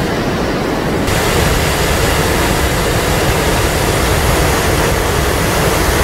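Devil's Kettle waterfall rushing: a steady, loud wash of falling water that turns brighter and hissier about a second in.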